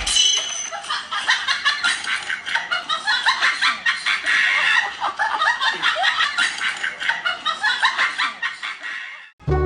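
Rapid, choppy cackling, a dense run of short irregular cackles, that cuts off abruptly near the end.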